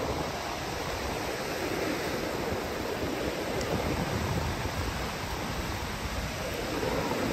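Steady rush of ocean surf on a beach, an even noise without distinct single wave breaks, swelling slightly near the end.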